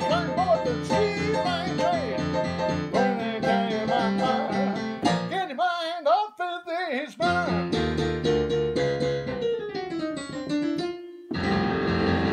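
Digital piano played in a bluesy style, with a steady repeating left-hand bass. About halfway the bass drops out while a man sings a short wavering line, then the piano comes back with chords. It cuts off briefly near the end before the playing picks up again.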